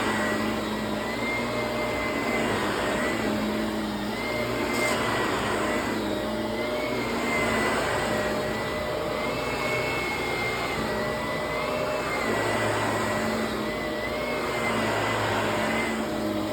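Vacuum cleaner running steadily, its motor whine wavering slightly in pitch and the loudness swelling and easing every couple of seconds.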